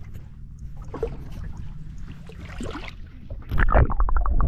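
Quiet wind and water with scattered small knocks. About three and a half seconds in it switches to a much louder, deep rumble of water moving over an underwater camera's housing, with a fast run of clicks.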